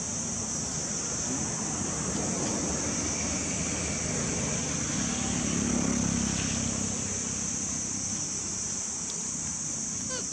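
A steady high-pitched insect drone under a low rumble that swells and fades about halfway through.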